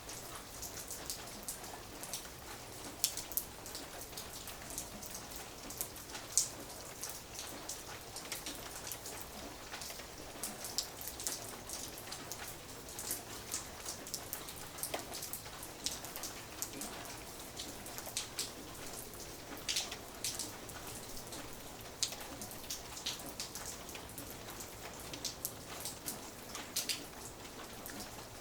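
Light rain falling, a steady soft hiss with many separate drops ticking irregularly on a surface.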